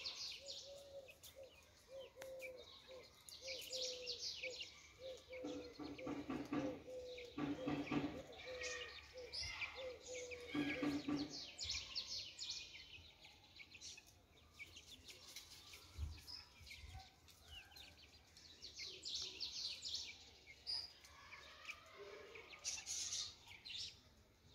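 Small birds chirping in many short, high chirps, coming and going in clusters, with a faint steady hum through roughly the first half.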